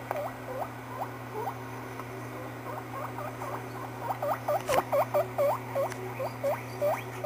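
Guinea pig squeaking: a run of short squeaks, each dipping and then rising in pitch, about three a second. They thin out in the middle and come faster and louder in the second half, with one sharp click about two-thirds of the way through. A steady low hum runs underneath.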